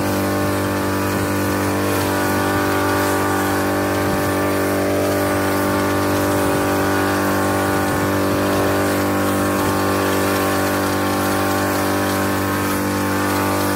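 Petrol-engine power sprayer pump running steadily at constant speed, with the hiss of mist from the spray wand.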